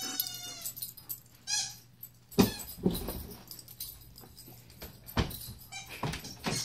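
A dog whining in high-pitched whimpers at the start and again briefly about a second and a half in, followed by a few scattered thumps and clicks.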